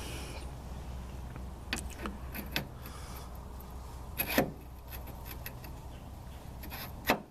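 Metal parts clinking and knocking as a bearing is worked onto a steering stabilizer bar: scattered sharp clicks, the loudest about four seconds in, over a steady low hum.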